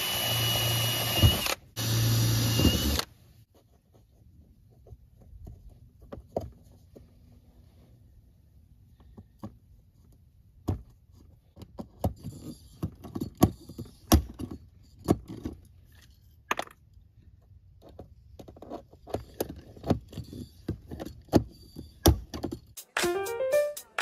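Cordless drill running into the camper's wooden roof edge board in two short runs, with a brief pause between them. Scattered light clicks and knocks of tool handling follow, and music starts near the end.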